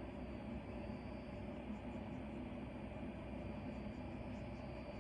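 Steady low background hum and hiss of room tone, with no distinct events.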